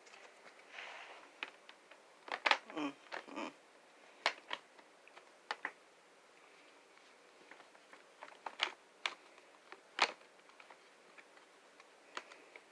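Plastic parts of a set of pet steps being handled and fitted together: scattered sharp clicks and knocks, a quick cluster about two and a half seconds in, then single ones every second or two.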